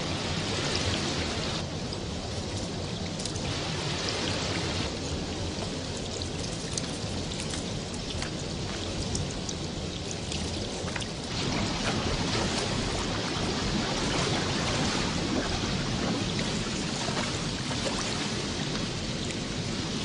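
River water rushing and splashing over boulders in a fast mountain current, a steady noisy wash. It shifts in tone several times and gets louder about eleven seconds in.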